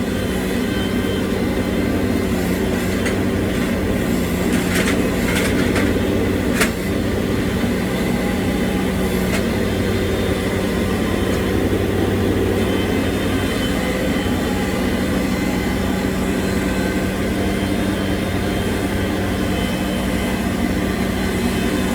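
Heavy equipment engine running steadily under work, with a few sharp clanks and knocks about five to seven seconds in.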